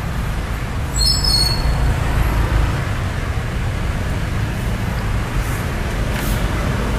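Motorcycle taxi riding through city traffic, heard from the pillion seat: a steady low rumble of engine and road noise. About a second in there is a brief high-pitched squeal.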